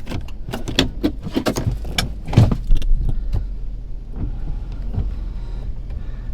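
Pickup truck engine running steadily, with a string of sharp clicks and knocks over the first few seconds, the loudest about two and a half seconds in.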